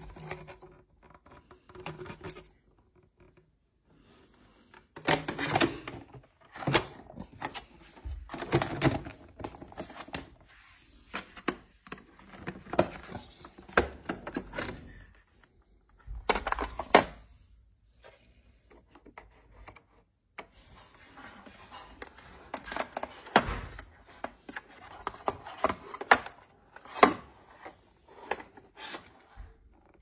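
Plastic dust container and filters of an AEG LX9 bagless canister vacuum being handled and taken apart: irregular clicks, knocks and scrapes of hard plastic, with several quiet gaps between bursts of handling.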